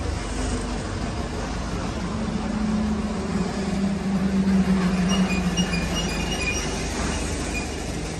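Truck engine running as it drives along the street, a low hum that builds up and then eases off, with short high metallic rings partway through.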